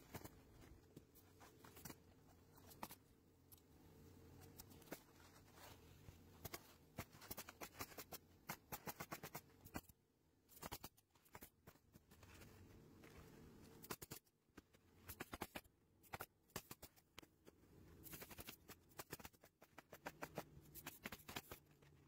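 Hitachi pneumatic coil roofing nailer driving nails into asphalt shingles: quick runs of sharp clacks, several a second, separated by pauses while shingles are placed.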